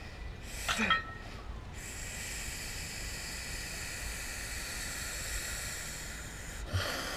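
A man lifting weights lets out a short grunt with a forced breath about a second in, the last of a run of rep grunts. It is followed by a steady hiss lasting about five seconds, and a brief rush of breath-like noise with a low thump near the end.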